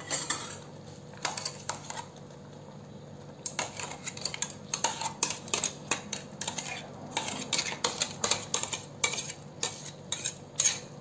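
Metal spoon clinking and scraping against a metal cooking pan as mango pulp is spooned and stirred into thickened milk. A few clinks at first, then a quick, irregular run of clinks from about three and a half seconds in.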